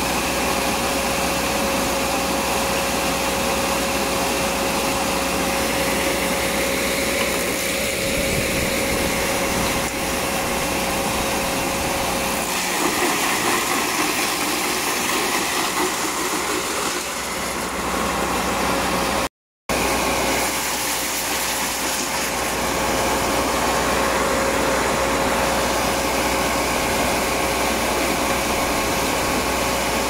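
Engine-driven disc wood chipper running steadily while bamboo poles are fed into it: a constant engine drone with a steady whine over it. The sound cuts out for a moment about two-thirds of the way through.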